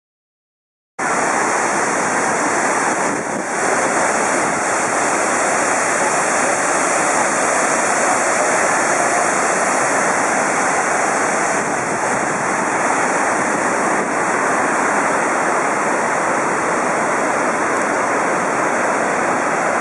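Victoria Falls on the Zambezi River: the steady rush of a great mass of falling water, cutting in suddenly about a second in.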